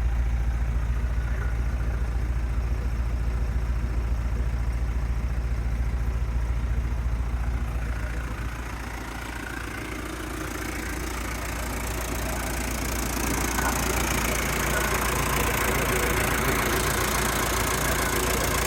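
Original four-cylinder diesel engine of a 1979 Toyota Land Cruiser BJ40 idling with a steady knocking clatter. About eight seconds in the sound dips, then comes back louder and brighter.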